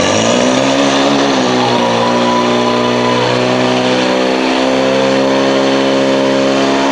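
Portable fire pump engine revving up quickly and then held at high revs, with a small shift in pitch about two seconds in, as it drives water through the attack hoses toward the targets.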